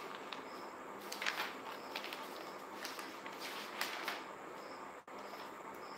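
Quiet room tone with a few soft clicks and rustles, and faint short high chirps of a cricket.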